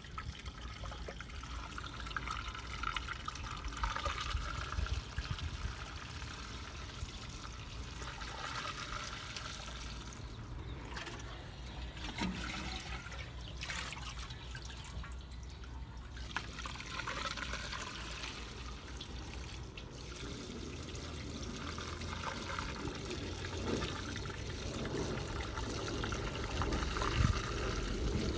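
Used cooking oil being poured from a glass jar into a galvanized metal tub, trickling and splashing into the oil already in it.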